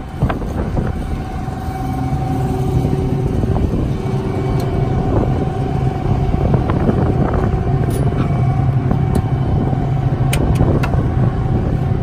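John Deere T550 combine harvester's diesel engine running steadily, with a few light clicks in the second half.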